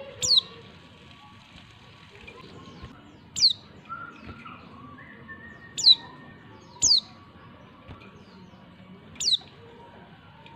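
A female white-eye (pleci) giving five short, sharp, high calls, each sweeping steeply downward, a few seconds apart. This female call is used as a lure to get male white-eyes to answer.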